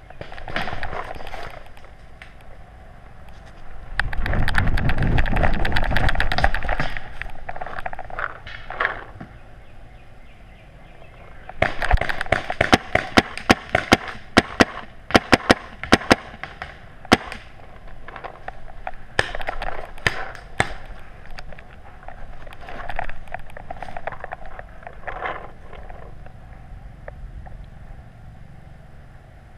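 Paintball marker firing a string of sharp pops, about a dozen in five seconds, with a few more shots a little later. Between the shots there is rustling and handling noise, and a loud low rumble comes about four seconds in.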